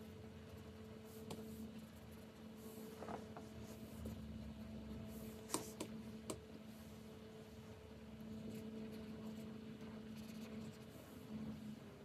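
Pen of a Wacom Cintiq 24 Pro pen display scratching and tapping on its screen: soft scratchy strokes, with a few sharp taps bunched a little before the middle, over a steady low hum.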